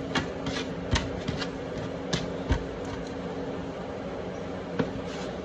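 Scattered light taps and knocks from handling the breadcrumb-coated pandesal dough and its pan. Under them runs a steady electrical hum, like a fan or air conditioner.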